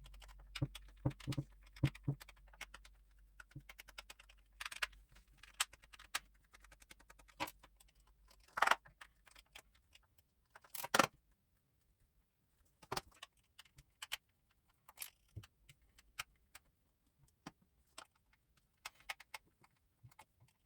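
Small screws being removed from the plastic housing of a cordless cross-line laser: scattered light clicks and clinks of screwdriver, screws and plastic parts. There are louder rattling bursts about nine and eleven seconds in.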